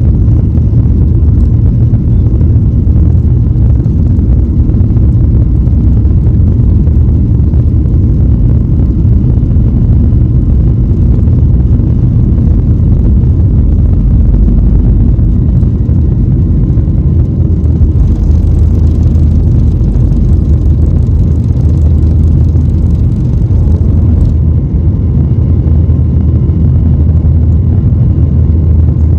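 Boeing 737 MAX 8 airliner's CFM LEAP-1B turbofan engines during the takeoff, heard as a loud, steady low rumble. A faint higher hiss joins about two-thirds of the way in and cuts off suddenly.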